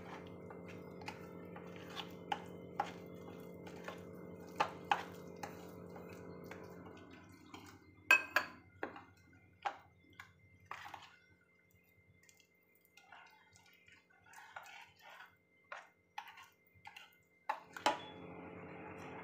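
Steel spoon stirring thick buckwheat-flour batter in a bowl: scattered light clicks and taps of the spoon against the bowl, a few louder ones, with a faint steady hum behind that drops away in the middle and returns near the end.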